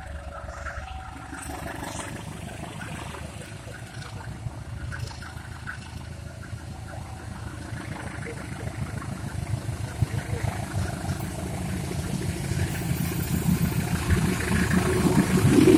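Diesel-electric locomotive engine rumbling as it approaches hauling a passenger train, growing steadily louder and loudest near the end. An alternating two-note tone stops about a second in.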